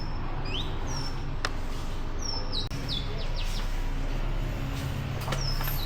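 Small birds chirping: a string of short, high chirps, some sliding down and some sliding up in pitch, over a steady low rumble.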